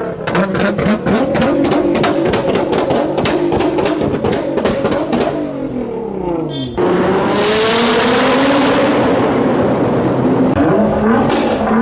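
Nissan GT-R exhaust popping and crackling in a rapid stream of sharp bangs over the engine note, with the revs falling off. About seven seconds in it cuts abruptly to a loud rev with a hissing rush, and the crackles return near the end.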